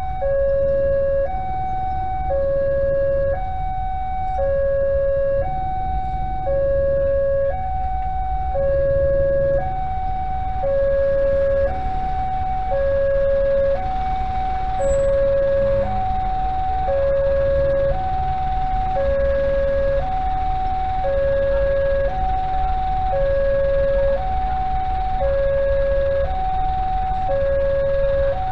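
Railway level-crossing alarm sounding its steady two-tone signal, switching between a higher and a lower note about every two-thirds of a second: the warning that the crossing is closed for an approaching train. A low rumble of waiting motor traffic runs underneath.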